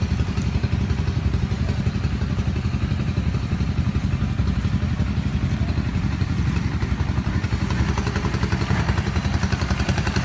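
A small engine running steadily at an even speed, with a fast, regular low-pitched pulsing.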